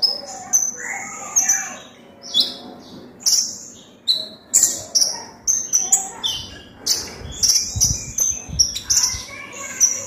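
Caged crimson sunbird (konin) singing a fast run of short, sharp, high chirps, some falling in pitch. These are flowerpecker (cabean) phrases the bird has learned: its 'cabean shots'.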